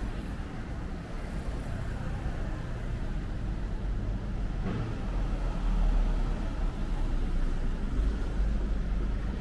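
Urban road traffic: a steady rumble of passing vehicles that swells louder partway through.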